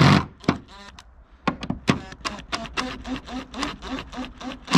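Cordless impact driver driving a screw through a gutter hanger into the roof edge: a loud burst of hammering cuts off right at the start, then short trigger blips at about four a second, each a quick click and brief whir.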